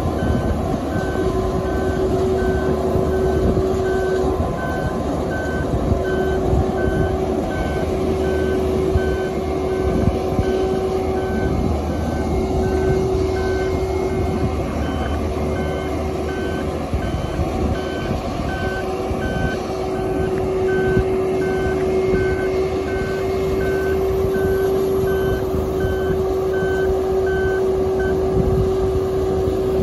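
Marine Travelift mobile boat hoist driving with a boat slung under it: its engine running with a steady hum under a travel-alarm beeping at an even pace, which stops near the end.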